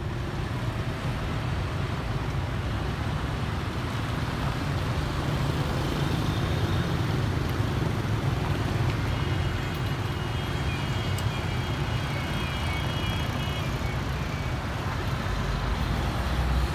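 Road traffic at a level crossing: cars and motorbikes driving over the tracks, a steady low rumble of engines and tyres. A faint, high, thin tone comes and goes in the middle.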